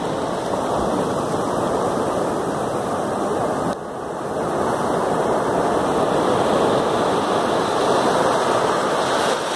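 Ocean surf breaking close by, with foam rushing up the sand in a steady wash of water noise. The sound drops suddenly about four seconds in, then swells back louder as the next wave comes in.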